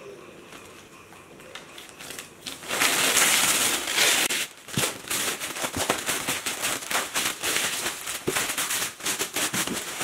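Clear plastic wrap crinkling and crackling as it is pulled off a cardboard box. It starts loud about three seconds in, then carries on as a steady stream of crackles.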